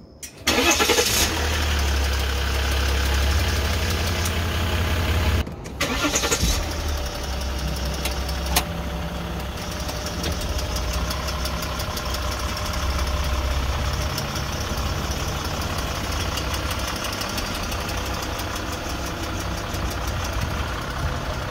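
2015 Jeep Grand Cherokee's 3.0-litre EcoDiesel V6 starting up and then idling steadily, with a short break about five seconds in. A rapid ticking runs through the idle. This is the startup clicking that the owner suspects comes from a failing transfer case control module.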